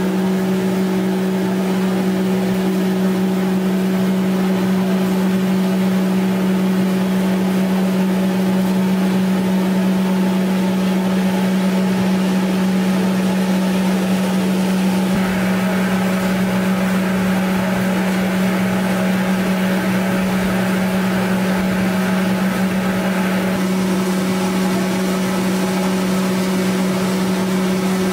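Steady mechanical hum of puffed-rice processing machinery, one constant low pitch over a noisy background. A rougher, hissier layer joins about halfway through and drops away several seconds later.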